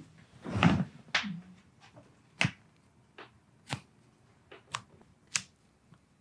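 Joints cracking and popping under chiropractic adjustment: about six sharp, separate pops spread over the few seconds, the first and loudest near the start, with fainter clicks between.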